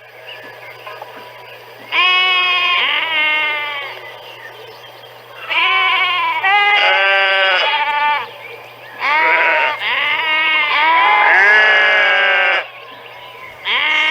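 Sheep bleating in repeated calls, several overlapping in bunches with short quiet gaps between.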